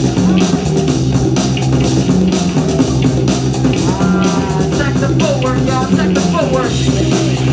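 Loud music played over a sound system, with a steady beat and heavy bass; a few gliding pitched sounds ride over it around the middle.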